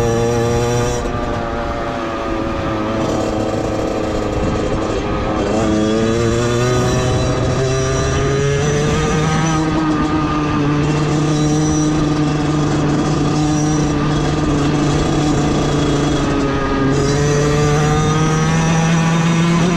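Beta 50cc two-stroke motorcycle engine running under load, its revs changing in steps several times and climbing steadily around six to nine seconds in.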